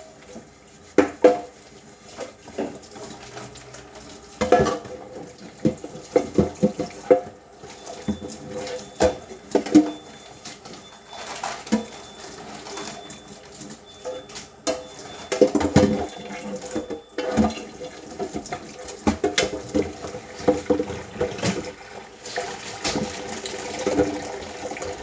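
Dishes being washed by hand at a kitchen sink: water running from the tap, with irregular clinks and knocks of dishes and utensils.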